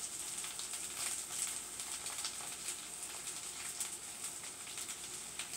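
Corned beef hash sizzling in a frying pan with many small crackles as olive oil is poured in.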